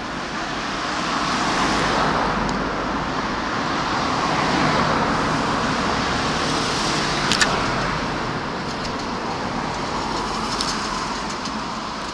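Electric train running on the nearby tracks: a rumble that swells and slowly fades over several seconds, with a sharp click about seven seconds in.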